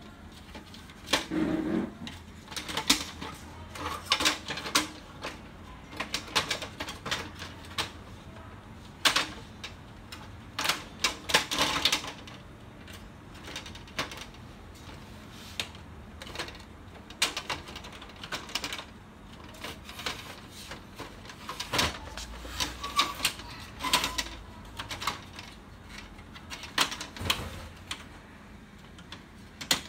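Irregular sharp plastic clicks, snaps and knocks as the rear door panel of an HP LaserJet P3015 laser printer is handled and fitted onto its hinges.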